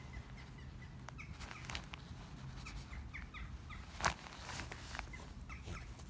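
Small birds chirping repeatedly in short, high, falling notes, with a single sharp knock about four seconds in.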